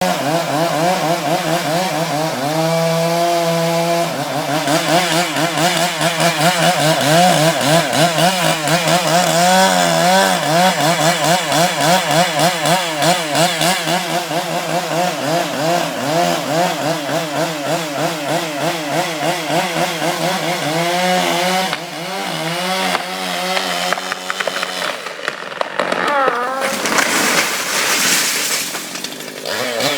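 Two-stroke chainsaw running under cutting load, its engine pitch wavering up and down rapidly as it bites into the wood. It eases off briefly twice in the last third, then revs up again near the end.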